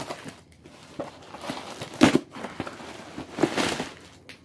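Cardboard shipping box being opened and handled: irregular rustling, scraping and crinkling of the flaps and packing, loudest about two seconds in and again around three and a half seconds.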